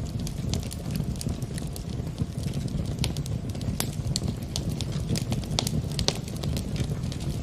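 Wood fire crackling in a fireplace: frequent, irregular sharp pops over a steady low rumble.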